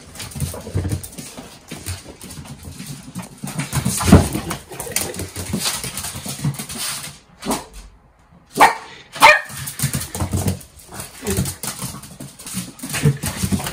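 Miniature schnauzer barking excitedly in a homecoming greeting, with sharp loud barks about four seconds in and twice more near nine seconds.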